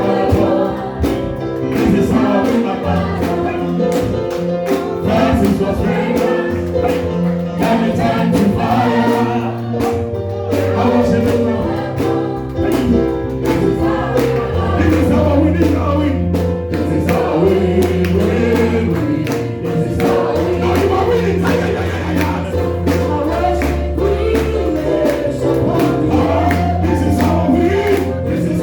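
Gospel praise music: a choir singing over a band with a steady bass line and drums.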